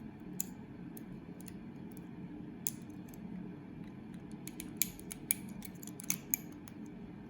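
Lock pick and tension wrench working in the keyway of a heavy-duty Kryptonite padlock held in the hand: irregular small metallic clicks and scrapes, a few louder ticks in the second half, over a steady low hum.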